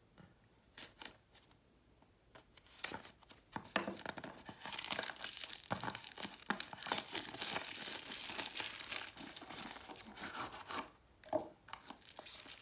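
Cardboard box and its packaging being opened by hand: a few light taps and clicks, then several seconds of dense crinkling and tearing that ease off near the end.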